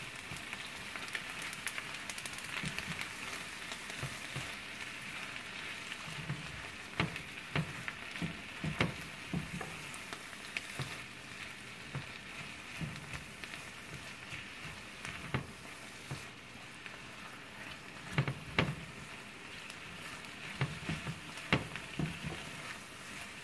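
Corn, diced bell peppers and onions sizzling steadily in butter and bacon fat in an enamelled cast-iron skillet. A silicone spatula scrapes and taps against the pan now and then as the vegetables are stirred.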